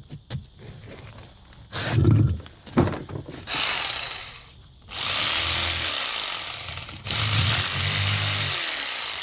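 Handheld electric power tool run in bursts of a couple of seconds each, its motor speeding up and running down again, as it is tried for trimming. It vibrates too much to trim with.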